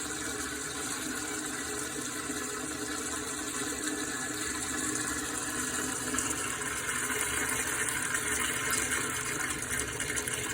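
Water rushing steadily through a urinal's flush valve that is stuck running, the continuous flushing of a urinal that won't shut off.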